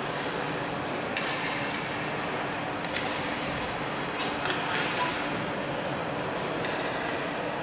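Distant players' shouts echoing around an indoor ice rink, broken a few times by sharp clacks of hockey sticks hitting the ball or the ice.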